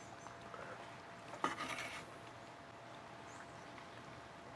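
Knife slicing through the glazed skin and meat of a smoked duck on a cutting board: a short scrape about a second and a half in, and another at the very end.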